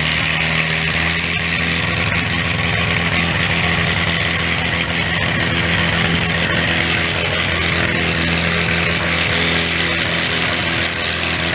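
Pulling tractor's diesel engine running hard under load, its pitch held steady and high as it drags a weight-transfer sled down the track.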